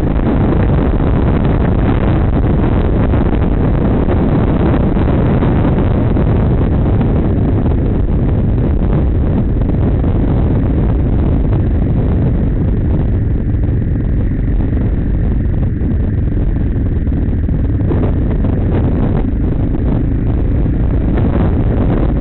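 Wind buffeting a dirt bike's on-board camera microphone at riding speed, with the motorcycle's engine running underneath as a steady low rumble. The rush eases off a little for a few seconds past the middle.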